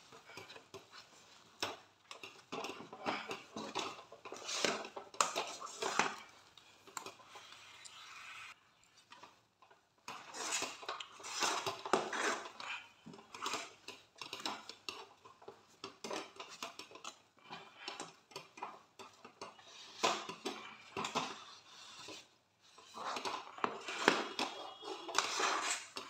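Metal spoon scraping and clinking against a pan while stirring and pressing a thick rice-flour dough, in uneven strokes with two short pauses.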